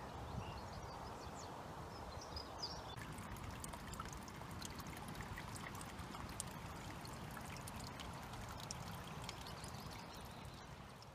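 Small garden stream trickling steadily, a soft, even rush of running water that fades away near the end.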